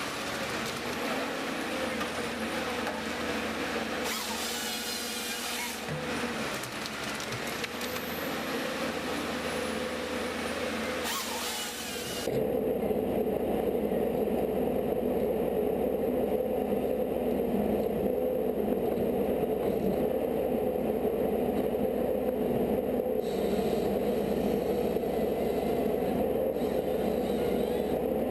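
Machinery running, in two clips. The first is a busy mechanical mix with two short bursts of high hissing. About twelve seconds in it cuts abruptly to a louder, steady engine drone.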